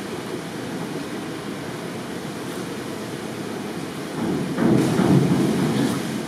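A springboard diver entering the pool: a splash about four seconds in, lasting around a second and a half, over a steady background rush.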